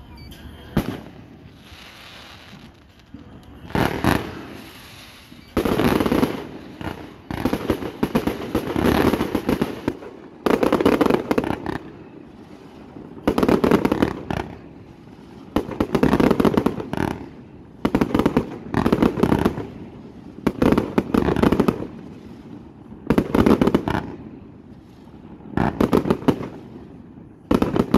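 Aerial firework shells bursting in quick succession: about a dozen loud bursts, each a cluster of bangs lasting about a second and coming every one to three seconds. A single bang comes just under a second in.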